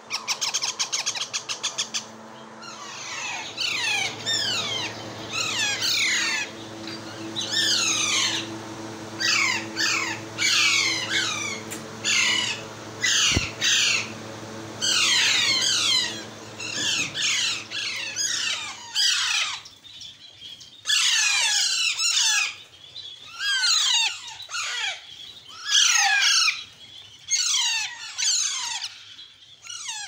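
Month-old parakeet chicks squawking over and over in harsh, falling calls while being handled, starting with a fast chatter and then coming in clusters of several calls. A low steady hum runs underneath and stops about two-thirds of the way through.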